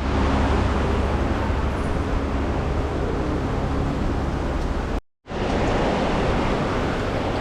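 Steady hiss of heavy rainfall, with a brief drop-out about five seconds in.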